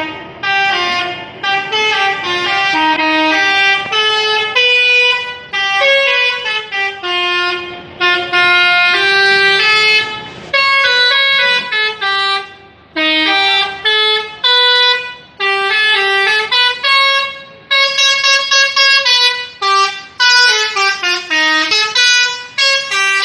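Indonesian 'telolet' musical bus horn playing a tune: a string of loud held horn notes stepping up and down in pitch, broken by short pauses between phrases.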